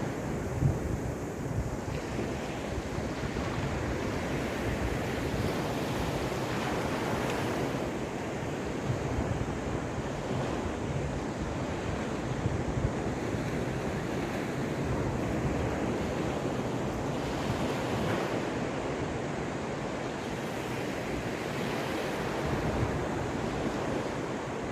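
Caspian Sea surf: a continuous rush of waves breaking and washing up, swelling every few seconds, with wind rumbling on the microphone.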